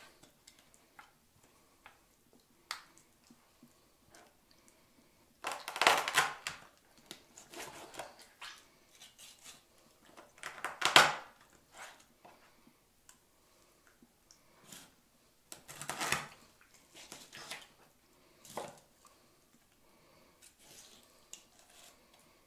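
Chef's knife cutting a carp into portion pieces on a wooden cutting board: scattered knocks and crunches as the blade goes through flesh and bone and meets the wood, in a few separate bursts, the loudest about eleven seconds in, with quiet stretches between.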